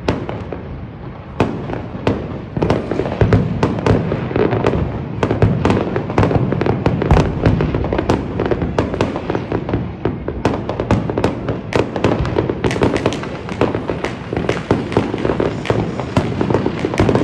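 New Year fireworks and firecrackers going off in a dense, continuous run of sharp bangs and crackles, many per second, thickening after about a second and a half.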